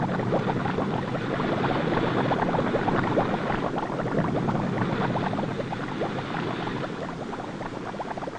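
Steady underwater bubbling and crackling, thinning out a little toward the end.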